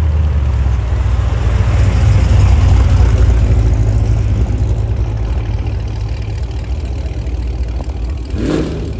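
A Corvette's exhaust rumbling deep and loud at low rolling speed, swelling about two seconds in and then slowly fading. A brief sharp sound cuts in near the end.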